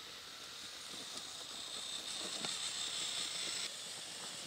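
Electric drive motors of an Axial XR10 motor-on-axle rock crawler, two motors fed by a dual ESC, giving a high whine under throttle that stops abruptly about three and a half seconds in. A few light knocks come from the tyres on the wooden ramp slats.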